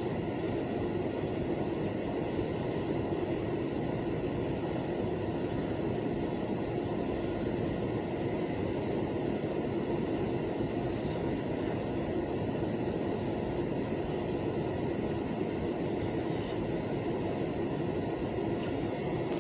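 Steady rumble of a Buffalo & Pittsburgh freight train's diesel locomotive, unchanging throughout.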